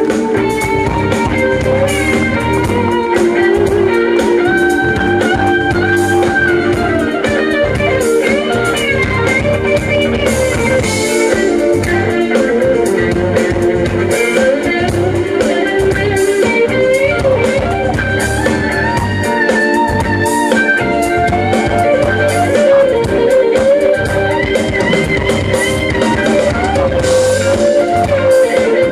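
Live band music: an electric guitar plays a lead solo line over a drum kit.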